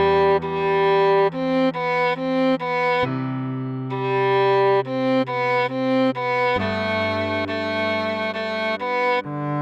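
Cello playing a pop-song melody slowly, at half speed, as a run of separate bowed notes over held low notes that change every few seconds.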